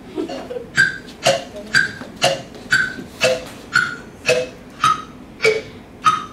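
A steady beat of sharp, pitched taps, about two a second, each ringing briefly, their pitch sinking slightly from one tap to the next.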